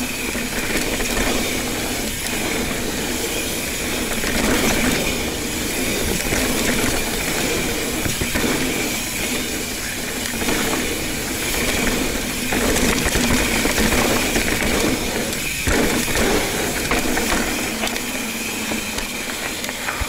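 Ibis Ripley 29er mountain bike riding fast down a rough dirt trail: steady tyre and wind noise broken by frequent knocks and rattles over roots and rocks, with a steady high buzz running through it.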